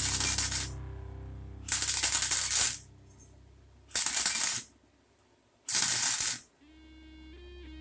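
Short bursts of welding on steel pipe, each a harsh crackling hiss under a second long, about four of them roughly two seconds apart, like tack welds. Quiet background music plays in the gaps.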